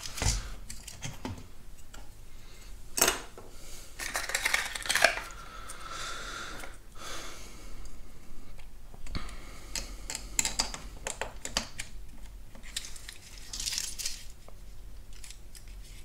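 Plastic clicks and handling rattles as replacement fan and temperature buttons are pressed onto a Porsche 987 Boxster climate control panel, with a sharp snap about three seconds in and a brief squeak near the middle.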